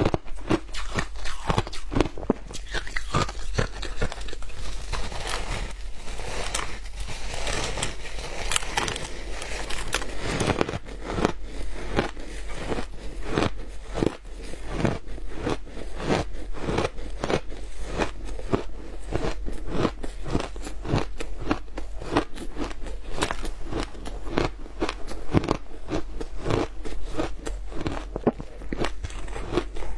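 Shaved ice being bitten and chewed close to a clip-on microphone: a steady, dense run of crisp crunches.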